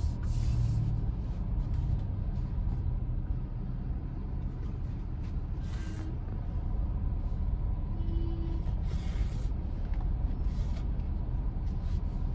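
Steady low rumble of motor vehicles, with a few short hisses partway through.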